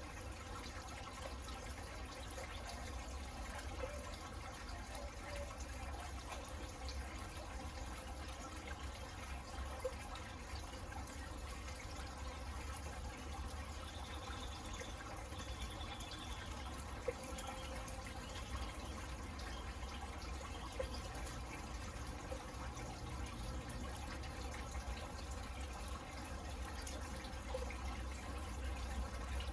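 Steady rain falling on a garden, with scattered drips and a low rumble underneath.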